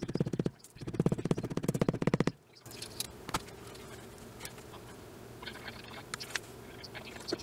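Leather creaking as glued pieces are pressed and worked by hand: a fast, low, rattly creak in two bursts over the first two seconds or so, then quieter handling with a few light clicks and rustles.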